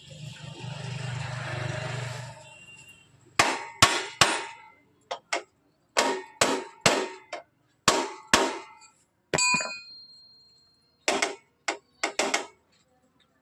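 A hammer striking the steel steering stem and headstock of a motorcycle, some seventeen sharp metallic blows in uneven groups, one ringing on briefly. The blows seat the new steering head ball races and cone. They are preceded by about two seconds of scraping noise.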